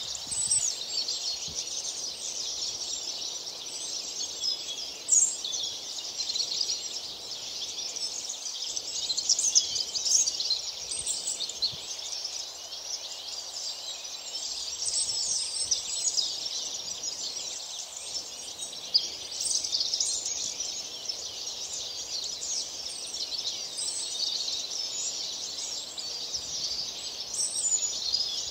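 Many small birds chirping at once: a dense, continuous chorus of short, high chirps with no pause.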